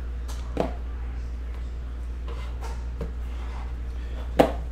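Hands handling a cardboard trading-card box on a metal tin: the box lid lifted off and the card stack set down, with a few sharp knocks. The loudest knock comes near the end, and a steady low hum runs underneath.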